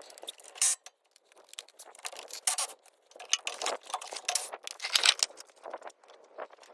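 Hand tools and metal parts under a truck: irregular clinks, scrapes and small rattles, as the anti-sway bar bushing brackets are worked loose.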